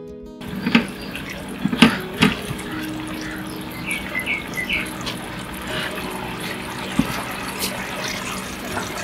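Sauce bubbling in a frying pan on the stove, stirred with a silicone spatula, with a few sharp knocks and scrapes against the pan, the loudest about two seconds in.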